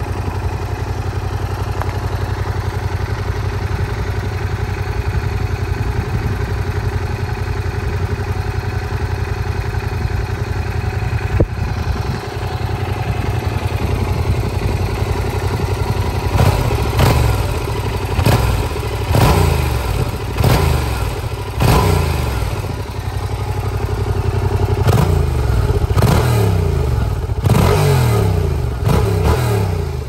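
Yamaha MT-07's 689 cc parallel-twin engine idling steadily through its stock exhaust, then, about halfway through, revved in a series of quick throttle blips, the revs rising sharply and falling back after each one.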